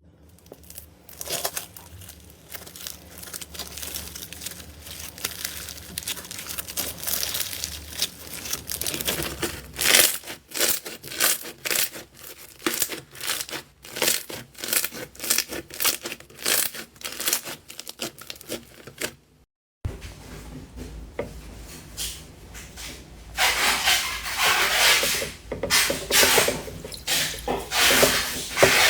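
Slime being squished and pressed, making dense crackling and popping clicks. It stops briefly about two-thirds in, then resumes louder and denser.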